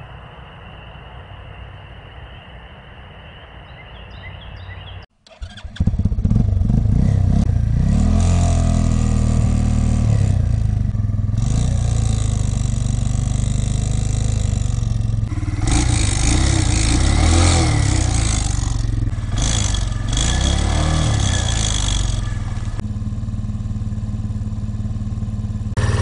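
Spring peepers calling faintly as a steady high chorus. About five seconds in, after a cut, a 125cc Chinese Honda-Grom-clone motorcycle's single-cylinder engine runs loud and is revved up and down a few times. Over it is a noise the rider takes for something loose, like a nut or bolt.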